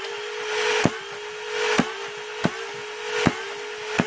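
Flywheel motors of a doubled Nerf Stryfe (four Rhino motors) holding a steady whine while the linked pushers fire: five sharp snaps about a second apart, each trigger pull sending two foam darts out at once.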